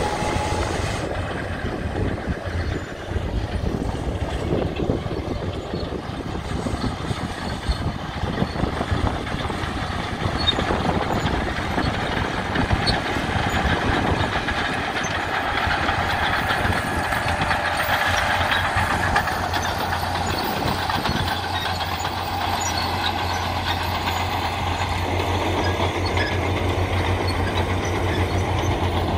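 Caterpillar D6D crawler dozer's six-cylinder diesel engine running steadily under load as it pulls a scraper box through topsoil, with the steel tracks clanking.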